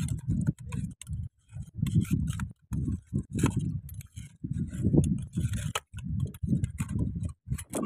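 A long knife blade poking and scraping into a crevice of coral rock, giving irregular clicks and knocks of metal on rock, over uneven low rumbling.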